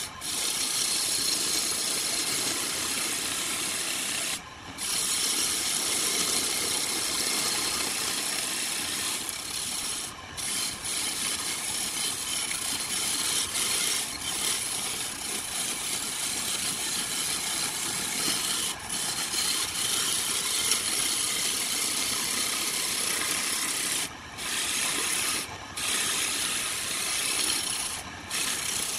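A flat chisel cutting into a spinning log on a homemade electric wood lathe: a steady scraping hiss of shavings being peeled off the wood. It breaks off for a moment a few times as the tool lifts away, then resumes.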